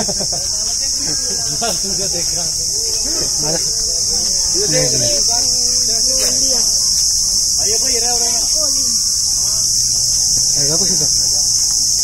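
Steady high-pitched insect drone with no breaks, the loudest sound present. Faint distant voices can be heard underneath.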